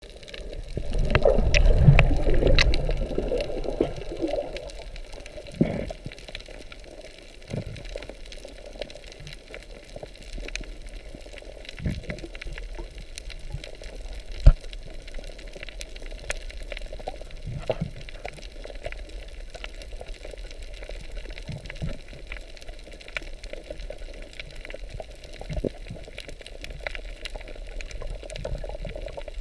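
Underwater sound picked up by a GoPro in its waterproof housing: muffled gurgling water, loudest for the first few seconds, then a low steady wash with scattered small clicks and pops.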